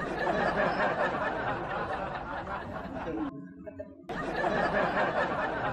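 Murmur of many voices with snickering laughter, cutting out abruptly for under a second about three seconds in.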